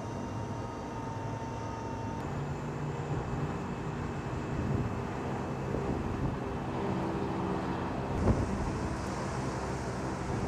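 Steady drone of aircraft and ground-vehicle engines running on a flight line, with a thin high whine that stops about two seconds in. A single thump comes about eight seconds in, and a high hiss is heard after it.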